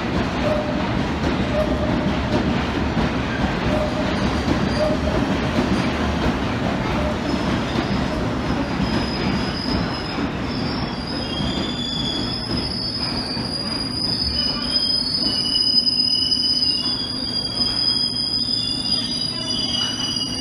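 London Underground S Stock train running into the platform and braking to a stop: a steady rumble of wheels on track, then from about halfway through a sustained high-pitched squeal as it slows.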